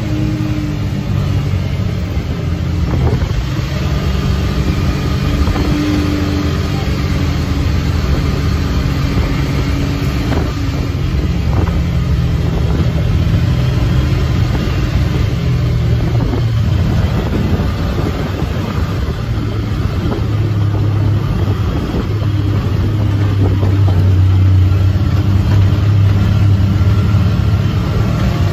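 Engine and drivetrain of a Wildcat XX side-by-side running steadily as it drives, heard from the passenger seat, with a low hum that shifts a little in pitch and gets louder near the end. A few knocks and rattles come through along the way.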